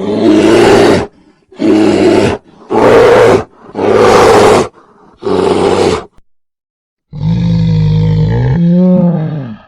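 Bear roaring: five rough roars of about a second each in quick succession, then after a short pause one longer call, about two and a half seconds, with a clearer pitch that wavers near its end.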